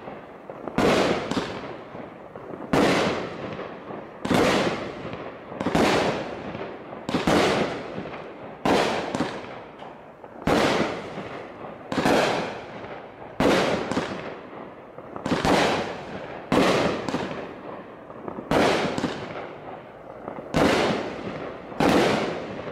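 Fox Fireworks Dive Bomb 200-gram consumer cake firing its shots in succession, a sharp report about every one to two seconds, each trailing off over about a second.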